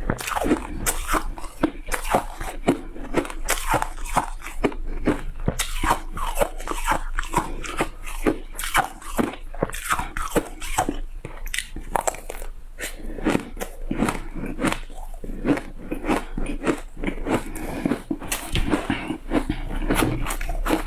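Shaved ice being bitten and chewed close up: a continuous run of crisp crunches, several a second.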